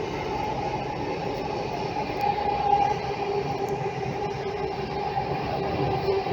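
Delhi Metro train running between stations, heard inside the coach: steady rumble of wheels on rail under a steady two-note whine.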